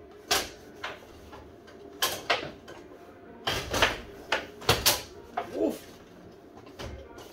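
Foosball table in play: the ball being struck by the rod figures and knocking against the table, a string of sharp clacks at irregular intervals, busiest from about three and a half to five seconds in.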